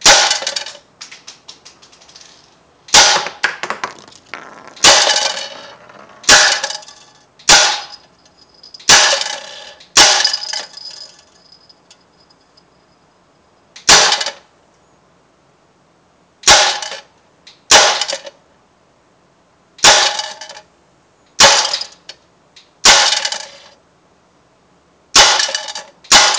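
Crosman AK1 CO2 BB rifle fired on semi-auto, one shot at a time: about fifteen sharp pops, one every one to three seconds, with a pause of a few seconds about halfway through. Each pop has a short ringing tail.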